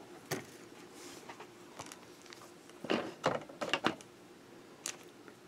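Light clicks and taps of pen cases and packaging being handled at a desk: one tap early, a quick run of four or five around the middle, and one more shortly after.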